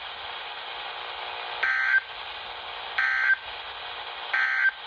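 NOAA Weather Radio sending three short EAS/SAME digital data bursts, each a harsh warbling tone about a third of a second long and roughly a second apart, over steady radio hiss. Their shortness marks them as the end-of-message code that closes the severe thunderstorm warning just read.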